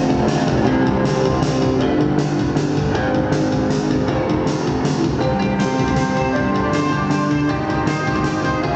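Live post-punk band playing: electric guitar, bass and drum kit with a steady beat, no vocals yet.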